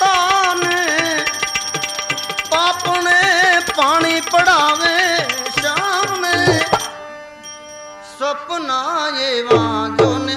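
Live Gujarati bhajan music with tabla keeping a beat under a wavering, ornamented melody line. The music drops off briefly about seven seconds in, then picks up again.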